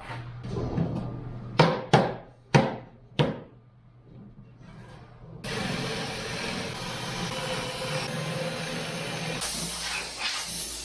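Four sharp knocks on wood in quick succession, like hammer blows in a workshop. They are followed about halfway through by a steady hissing noise from a tool.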